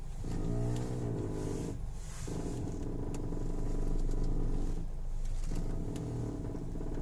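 Creaking, crackling noise from a 2007 Citroën Grand C4 Picasso's steering as the wheel is turned, over a steady low hum, in three stretches broken by short pauses about two and five seconds in. It sounds only while the wheel is turning, gets louder the faster it turns, and seems to come from the front left; the owner does not know its cause.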